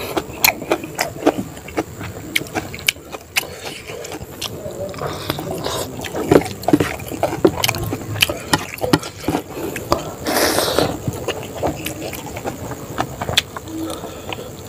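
Close-up eating sounds: a man chewing with wet mouth clicks and lip smacks while his fingers mix rice on a plastic tray, with a short breathy rush about ten and a half seconds in.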